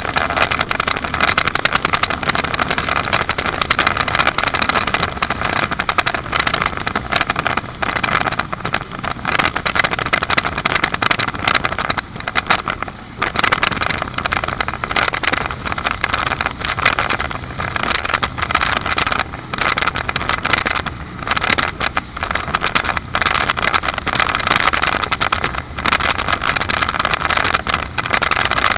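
Powerboat running fast over open water: a continuous noisy rush of engine, wake and spray, with wind buffeting the microphone in quick irregular gusts.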